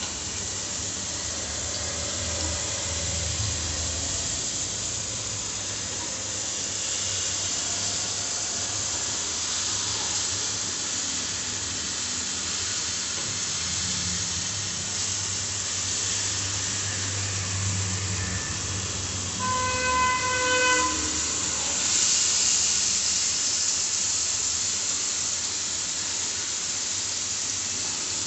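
Ghee sizzling steadily in a pan as sugared banana slices fry over a medium gas flame. About two-thirds through, a single short horn-like tone sounds over it.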